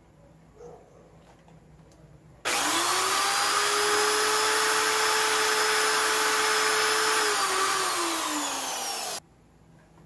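Power drill working on a hockey skate's toe cap: it spins up about two and a half seconds in, runs steadily for about seven seconds, slows a little near the end and stops suddenly. Faint handling clicks come before it.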